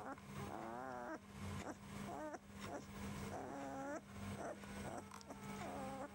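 Very young rough collie puppies squeaking and whining: a run of short, high rising and falling whimpers, with one longer wavering whine about half a second in.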